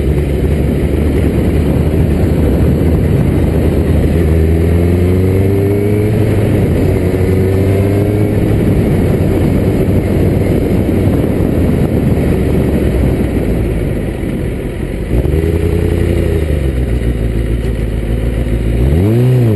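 1995 Kawasaki ZX-6R's inline-four engine running under way, its pitch climbing several times as the bike accelerates. It eases off briefly about two-thirds through, and a quick rev rises and falls just before the end.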